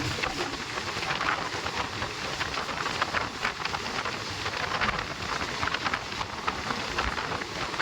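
Passenger express train running, heard from aboard: a steady rushing noise peppered with many small irregular rattles and clicks.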